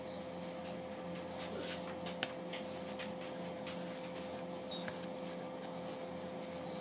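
Plastic spatula stirring and scraping glutinous rice flour dough against a plastic bowl, with soft scrapes and a few light clicks, over a steady background hum.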